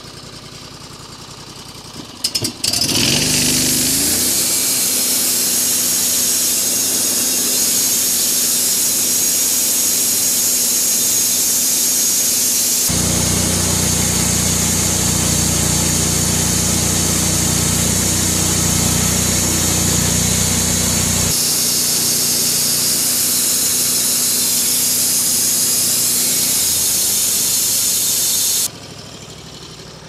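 Portable bandsaw mill running, its blade sawing lengthwise through a willow log. The machine noise starts suddenly about two and a half seconds in, turns heavier and lower for a stretch in the middle, and stops abruptly near the end.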